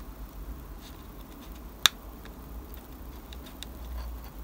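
Fingers pressing a small plasticard door piece into a card model's doorway: faint light ticks of plastic against card, with one sharp click a little under two seconds in, over a low steady hum.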